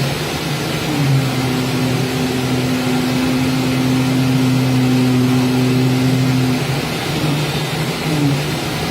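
CNC oscillating knife cutting machine running as it cuts a gasket sheet: a steady motor hum over a hiss. The hum holds one pitch for several seconds and briefly drops and rises in pitch about a second in and again twice near the end, as the machine changes speed.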